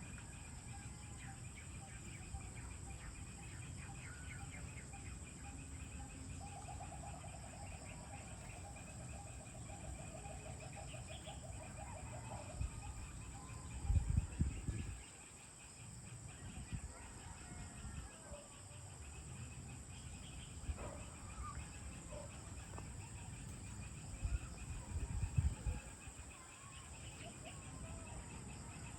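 Evening outdoor ambience: insects chirping steadily in the background while birds call, including a rapid run of repeated notes lasting several seconds. Two brief low rumbles stand out, one around the middle and one near the end.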